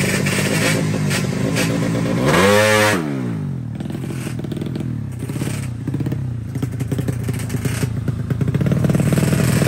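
A drag-racing motorcycle engine idles, is revved once briefly about two seconds in, then runs unevenly with a ragged, uneven beat that grows louder near the end.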